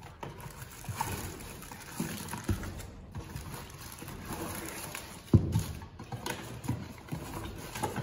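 A small cardboard box being opened and plastic-wrapped parts being pulled out: cardboard flaps scraping, plastic wrapping crinkling and a few knocks on cardboard. The loudest knock comes a little after five seconds in.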